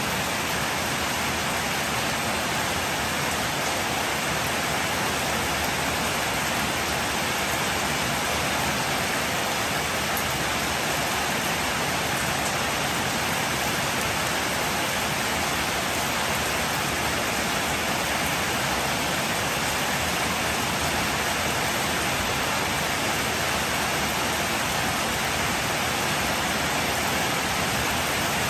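Steady rain falling on a wet street, an even hiss that does not let up.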